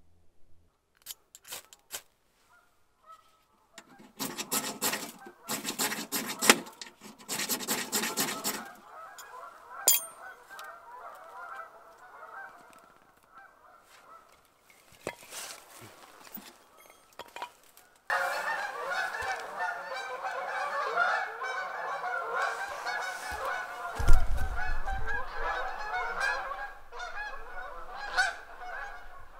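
A flock of Canada geese honking as it flies over, many calls overlapping, faint at first and then loud and dense from a little past the middle. Before the honking builds there are a few short noisy rustling bursts, and near the end there is one low thump.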